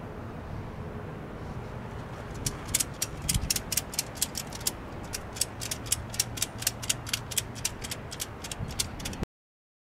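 Truck camper's hand-cranked corner jack being worked, its ratchet giving a rapid series of sharp clicks, about four a second, starting a couple of seconds in. The sound cuts off suddenly near the end.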